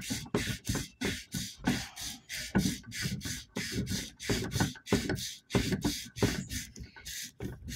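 Hand sanding on the armature of an old International 460 tractor starter: quick back-and-forth rasping strokes, about three or four a second, cleaning pitting and burn marks off the metal.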